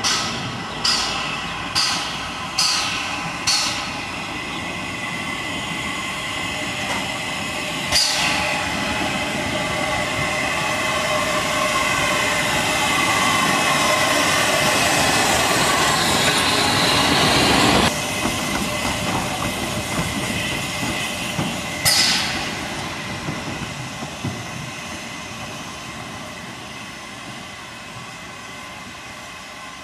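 Narrow-gauge steam locomotive working in a station yard. A few slow exhaust chuffs fade out after about four seconds. A steady steam hiss then builds as the locomotive moves close by and cuts off sharply about two-thirds of the way through. It is broken by two short sharp bursts, then the sound dies away.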